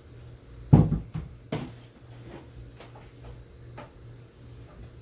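Knocks and clicks of a bare engine cylinder being picked up and handled on a workbench. There are two solid knocks about a second in, then a few lighter clicks.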